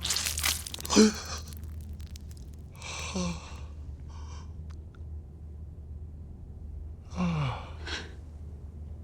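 Wordless human gasps and sighs: a sharp gasp about a second in, then two falling sighs about three and seven seconds in, with a few faint clicks over a low steady hum.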